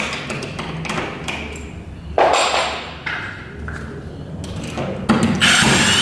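Metal lock parts clicking and tapping as they are handled, then a cordless drill-driver spinning for about a second near the end, backing the screws out of a sliding patio door lock.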